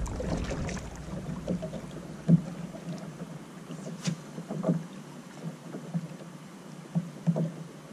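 Wind buffeting the microphone on a kayak, easing off after about two seconds, with scattered light knocks and water slaps against the kayak's hull, the loudest a little over two seconds in.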